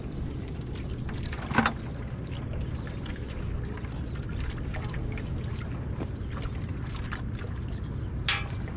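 Steady low outdoor rumble of wind on the microphone and harbour background, with scattered light clicks. A sharp knock comes about one and a half seconds in, and another click near the end.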